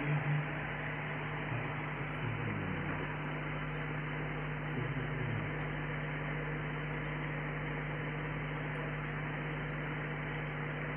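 Steady low hum with a hiss, no distinct event.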